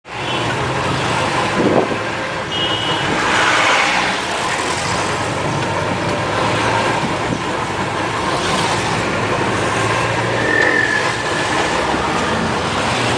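Road traffic noise: a dense, steady wash of passing vehicles that cuts in suddenly, with a couple of brief high squeals or tones over it.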